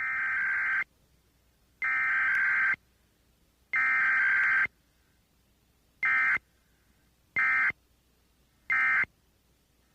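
Emergency Alert System (SAME) digital data bursts: harsh buzzing warble. Three longer bursts of about a second each open the alert, followed by three short bursts, each separated by about a second of silence.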